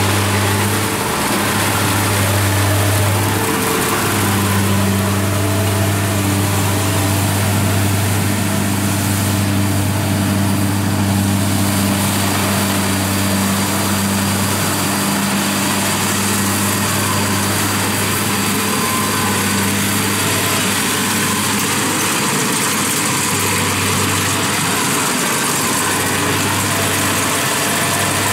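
Kubota DC-70 rice combine harvester running steadily as it cuts and threshes rice, its diesel engine giving a constant low hum that fades a little midway and comes back stronger near the end.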